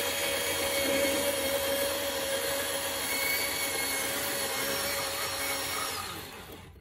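Portable bandsaw running and cutting through the plastic edge of a car dashboard, a steady motor whine mixed with blade cutting noise. It winds down and stops near the end.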